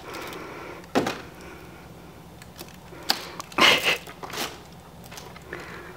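Crinkling and clicking of plastic packaging as small plastic toy pieces are handled and taken out. There is one sharp crackle about a second in, then a cluster of louder crinkles and clicks around the middle.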